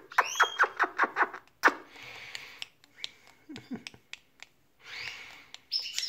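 Quick runs of lip-smacking kisses on a pet budgie, loudest in the first second and a half and scattered after, with soft breathy whispers in between and a few short budgie chirps.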